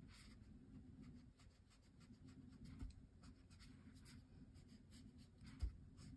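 Faint, short swishes of a watercolour brush's tip drawn across paper, a few strokes at a time, over a low steady hum. A soft low thump about three seconds in and a sharper one near the end.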